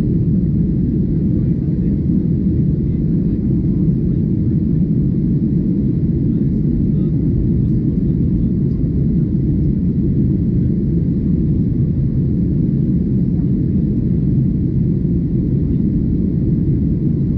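Steady low rumble of a Boeing 737-800 in flight, its engine and airflow noise heard inside the cabin, unchanging throughout.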